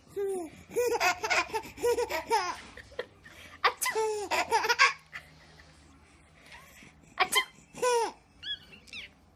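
A baby laughing in repeated bursts of giggles and belly laughs, with high squeals near the end. The laughter pauses for a couple of seconds in the middle. Two short, sharp noises, about four and seven seconds in, are each followed by a fresh burst of laughter.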